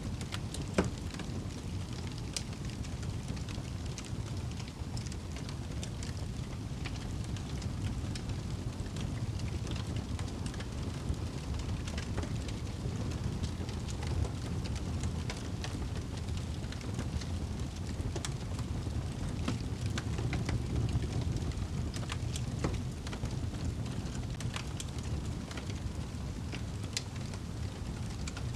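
Wood fire crackling in a fireplace: a steady low rumble with scattered sharp pops and snaps, one louder pop about a second in.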